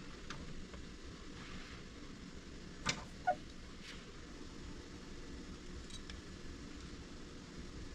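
Quiet room tone with a few light clicks, two sharper ones close together about three seconds in.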